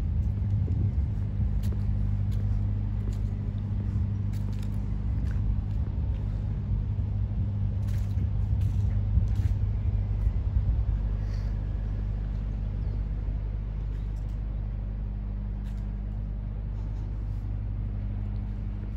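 Steady low hum and rumble of city background noise, with a few faint clicks now and then; it eases slightly about two-thirds of the way through.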